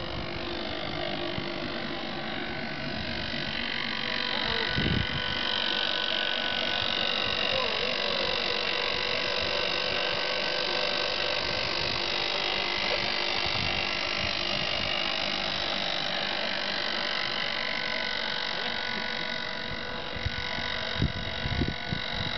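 Electric winch mounted in a loaded wooden cart, its motor and gears running with a steady whine as it winds in its cable and hauls the cart up a ramp. The whine swells about four seconds in and eases off near the end, with a single knock about five seconds in.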